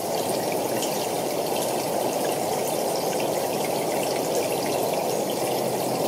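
Steady rush of flowing water.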